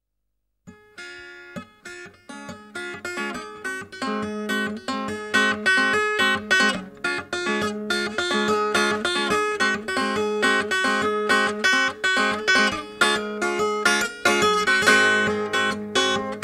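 Instrumental background music of picked acoustic guitar, fading in over the first few seconds.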